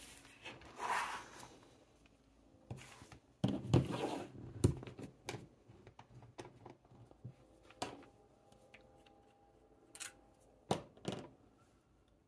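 Small desk handling noises: a notebook page rustles as it is turned, then come scattered clicks, taps and knocks as a fountain pen and a bottle of ink are handled. The loudest knocks are about four seconds in, with a few more near the end.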